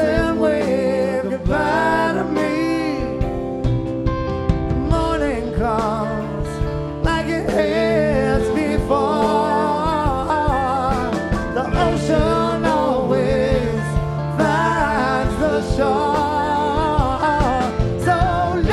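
Live rock band playing a song: electric guitars, bass and drums, with a wavering melodic lead line over them.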